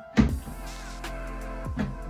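Background music with a beat: a heavy, pitch-dropping bass drum hit about a fifth of a second in and again near the end, over held notes.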